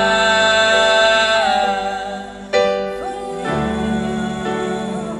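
Live pop-rock band music with a long held sung note in the first second and a half, then new chords about two and a half and three and a half seconds in.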